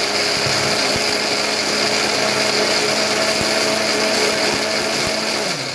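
Electric blender running steadily, churning peeled pomegranate seeds into juice; the motor winds down and stops near the end.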